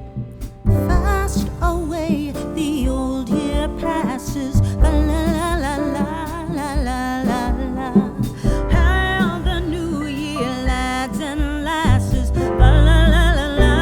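Background music: a song with a singing voice over a beat and bass, coming in strongly under a second in.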